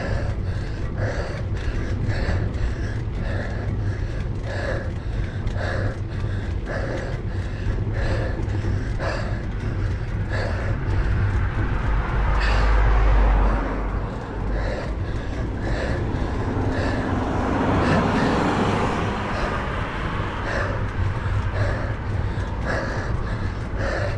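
A cyclist panting hard while climbing, a heavy breath about every two-thirds of a second, over steady wind rumble on the microphone. About halfway through, an oncoming car passes, its tyre and engine noise swelling and then fading.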